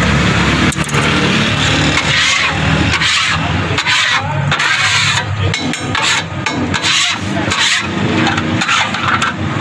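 A flat iron street-stall griddle being scraped clean in a series of short strokes, over the steady hum of an engine running.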